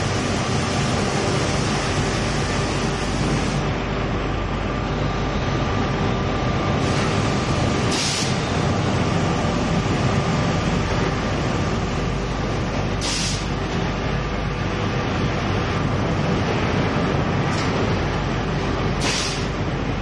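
Steady, loud running noise of powder-coating booth machinery, with a faint steady hum in it, broken by three short hisses.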